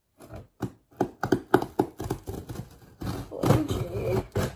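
Scissors cutting through plastic packing tape on a cardboard shipping box: a quick run of sharp snipping clicks, about four or five a second, then a denser stretch of cutting and rustling against the cardboard.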